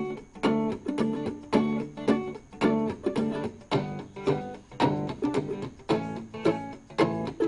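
Background music: acoustic guitar plucked and strummed in a steady rhythm, about two strokes a second.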